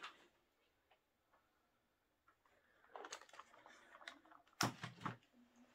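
About three seconds of near silence, then light plastic clicks and a louder clatter of small plastic containers knocking together, as a diamond-painting drill storage tray is handled and set down.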